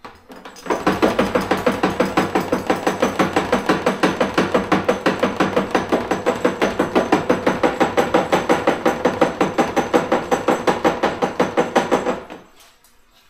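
Jiggle siphon being shaken up and down in a fuel tank to prime it: a fast, even train of knocks and rattles, several a second, that stops abruptly near the end once the fuel starts to flow.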